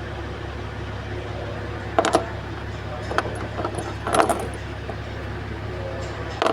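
Nissan Patrol V8 engine idling with a steady low drone while it has a misfire, with several sharp metallic clinks of tools or parts a second or so apart.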